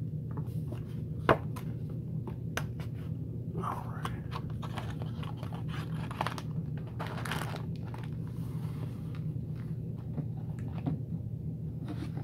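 A cardboard trading-card hobby box being opened by hand: scattered crinkles, creaks and small snaps of the lid and flap, with one sharp snap a little over a second in and short rustling tears about four and seven seconds in.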